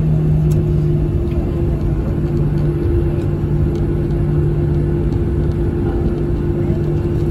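Steady low drone inside the cabin of a Boeing 737-700 on the ground at low power: a rumble with two steady hum tones.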